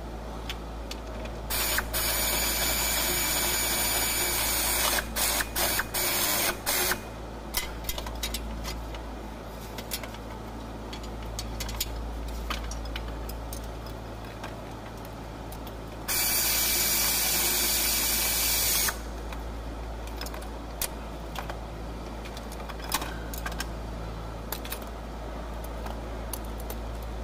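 A power tool running in two bursts of about three seconds each, with a quick stutter of short on-off pulses just after the first, as bolts are driven in to fit a replacement starter motor.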